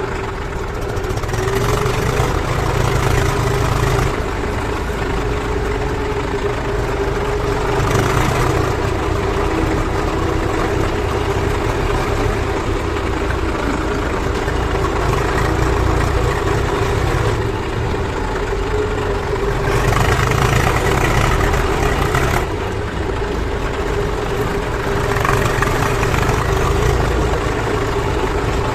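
JCB backhoe loader's diesel engine running while it works, with a steady hum whose sound swells and eases every few seconds.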